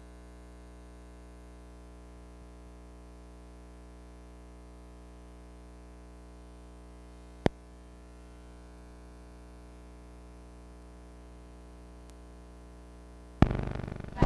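Steady low electrical hum from an old film soundtrack running over blank leader, with one sharp click about seven and a half seconds in. Near the end, loud cartoon title music starts.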